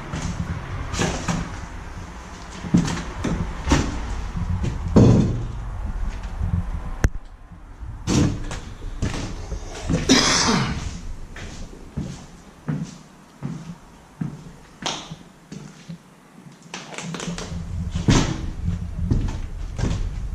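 Irregular knocks and thuds, with a longer scraping or rustling noise about ten seconds in, over a low rumble.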